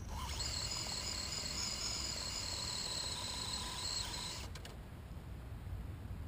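High-pitched electric whine of an RC drag car's motor, held nearly steady with small steps in pitch for about four seconds, then cut off abruptly with a couple of clicks.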